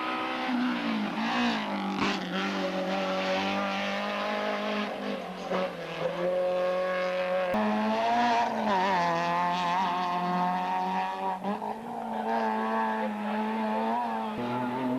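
Competition car engine running hard at high revs up a hillclimb stage, its note jumping abruptly in pitch a few times as gears are changed.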